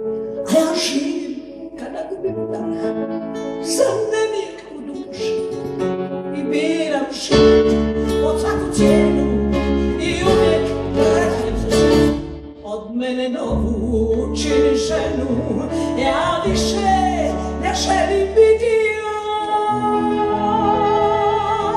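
Live music: a woman singing with acoustic guitar and keyboard accompaniment. Deep low notes come in about seven seconds in.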